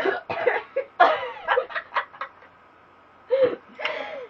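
Women laughing and giggling in short, choppy bursts; the laughter dies down after about two seconds, then picks up again in a couple of brief laughs near the end.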